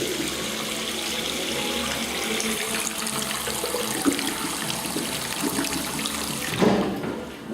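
Toilet flushing: a steady rush of water that cuts off sharply near the end, followed by a knock.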